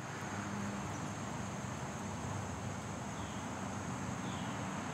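Outdoor background: a steady high insect drone over an even hiss, with a faint low hum that comes and goes and two faint short falling chirps in the second half.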